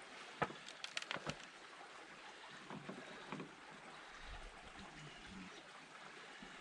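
A few sharp clicks and knocks about half a second to a second and a half in, from the new track roller and its bolts being handled and fitted under the mini excavator. An even hiss of wind runs beneath, with a low wind rumble on the microphone from about four seconds in.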